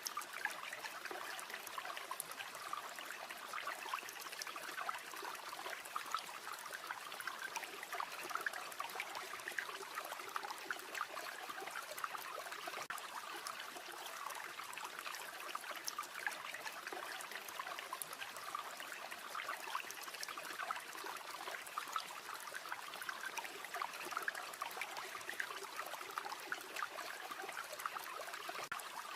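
A river or stream flowing steadily: a continuous babbling rush full of small trickles and splashes.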